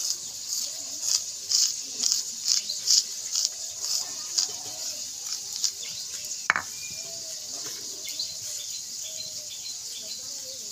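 Dry ground spice powder being scraped and gathered off a stone grinding slab (shil) by fingers and a plastic spoon: repeated short, dry scratching strokes, with a sharp click about six and a half seconds in, then softer scraping.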